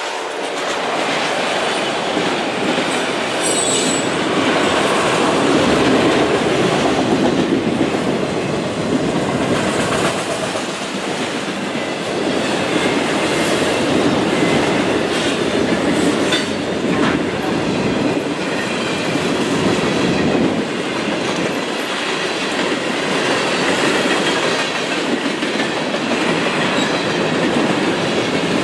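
A train's railroad cars rolling steadily past, wheels clacking over rail joints, with a brief high wheel squeal about four seconds in.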